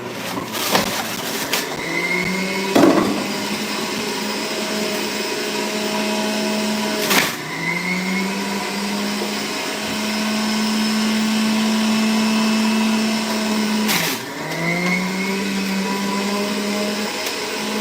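Electric juicing appliance motor running steadily. Its pitch drops sharply twice, about seven and fourteen seconds in, each time with a click, then climbs back up to speed.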